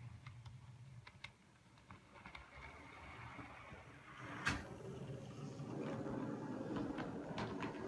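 Model diesel switcher locomotive running along the track: the faint rumble of its small motor and wheels, growing louder from about four seconds in, with a sharp click about four and a half seconds in and a few lighter ticks near the end.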